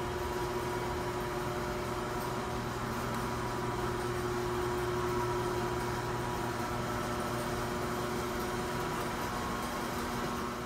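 Large shop ventilation fans running, a steady rushing of air with a constant hum.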